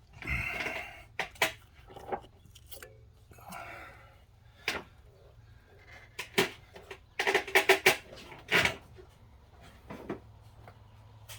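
Metal clinks, taps and a short scrape as a cylinder head is worked into place on an engine block. There are scattered single knocks, and a quick run of sharp clinks about seven to nine seconds in, which are the loudest.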